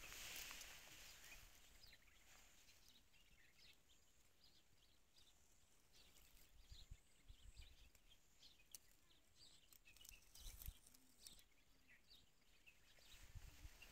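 Near silence: faint outdoor field ambience, with light wind buffeting the microphone in a few low rumbles and faint, scattered distant bird chirps.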